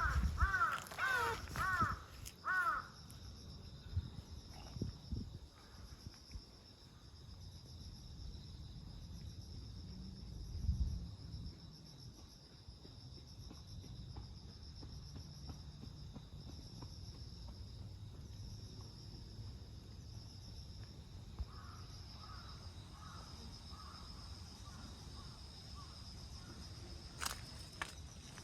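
Crows cawing in a quick series of short calls at the start, with a fainter run of caws about three-quarters of the way through, over a steady high chirring of insects. There are also a few low thumps and rustles.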